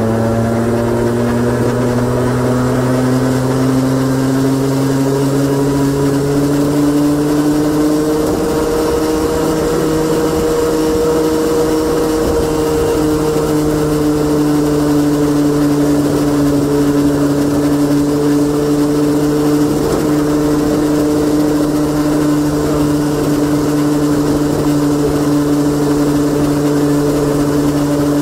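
Honda Gyro X TD01 three-wheeled scooter's 49 cc two-stroke single-cylinder engine running under way, with a deep, low note. Its pitch climbs over the first several seconds, then holds steady at cruising speed.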